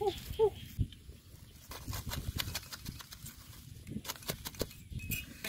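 Leafy tree branches rustling and crackling as they are pulled and handled, with many short sharp clicks and snaps and a low thump just under a second in. Two short calls sound right at the start.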